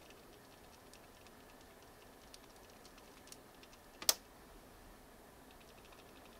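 Faint, scattered light clicks and taps in a quiet room, with one sharper, louder click about four seconds in.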